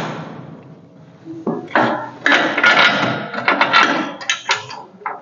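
Irregular metallic clanks and rattles of steel rotisserie hardware being handled and set, after a steady running noise dies away in the first second.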